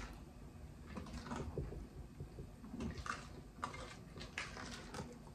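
A spoon stirring thick cake batter in a glass mixing bowl: irregular soft scrapes and clicks of the spoon against the glass.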